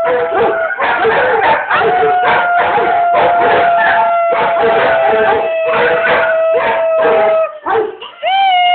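Rhodesian ridgeback dog howling one long, steady note, over a string of short yips; a second howl rises and holds near the end.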